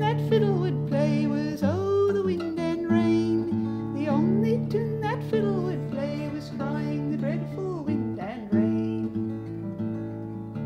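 Acoustic guitar playing the closing bars of a folk ballad, its notes ringing on, with a few long sliding notes over them. The music slowly fades toward the end.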